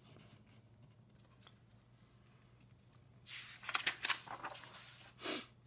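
Sheets of paper rustling and sliding over each other on a desk as a worksheet page is lifted off and swapped, in a run of scratchy swishes starting about three seconds in and lasting about two seconds.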